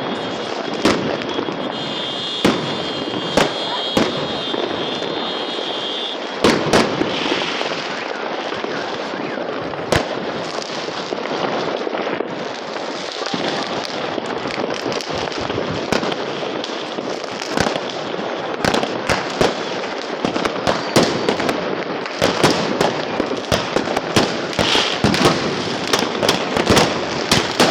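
Fireworks going off: scattered sharp bangs, turning into dense rapid crackling volleys in the last few seconds. A high steady whistle sounds for a few seconds about two seconds in.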